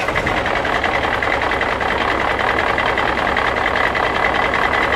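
A motor running steadily, with a fast, even rattle.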